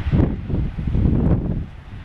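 Wind buffeting the microphone in strong, uneven low gusts, with a brief lull near the end.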